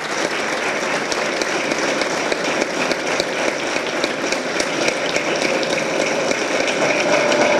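Audience applauding: a steady, dense clapping of many hands.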